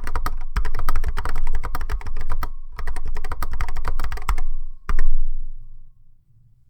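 Typing on an Apple M0110-A keyboard with Alps SKCC Tall Cream switches: quick runs of keystrokes, a brief pause, more keystrokes, then one loud key press about five seconds in. A pingy spring ring sounds under the strokes and fades after the last press; the hollow case and thin mounting plate make it worse.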